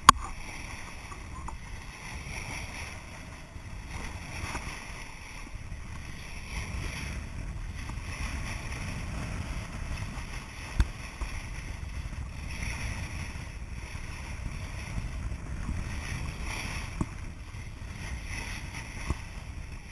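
Bow wave rushing and splashing along a sailboat's hull, with wind rumbling on the microphone. A sharp knock right at the start and a smaller one about eleven seconds in.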